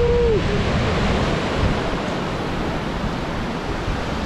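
Sea surf breaking on a rocky shore: a steady rushing wash of waves, with wind rumbling on the microphone. A held tone fades out about half a second in.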